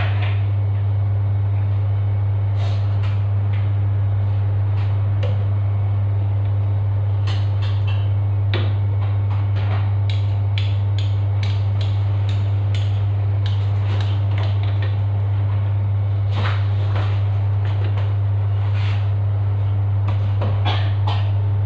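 A steady low hum, with scattered light clicks and knocks of kitchen work over it.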